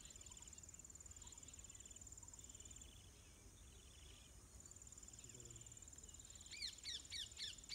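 Insects trilling: a high, fast-pulsed trill that drops out for a while midway, with a lower chirping insect in short bursts. About a second before the end a bird starts a run of quick, loud calls, about four a second, the loudest sound here.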